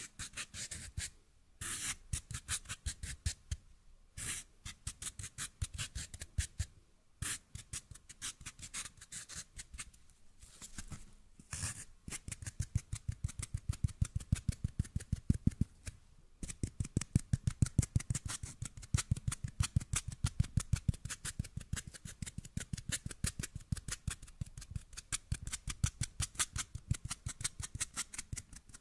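Rapid fingernail tapping and scratching on a small white hand-held object right at a microphone, a fast run of crisp ticks. From about twelve seconds in the taps grow denser and louder, each with a soft low thud.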